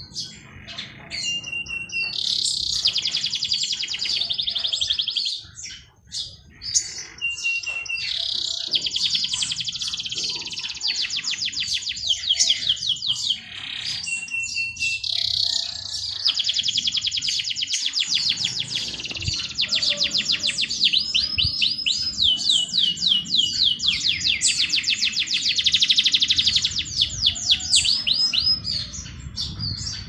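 A songbird singing long phrases of very fast trilled notes, each phrase lasting a few seconds with short pauses between. Several phrases open with a thin, short whistle, and scattered short chirps fall in the gaps.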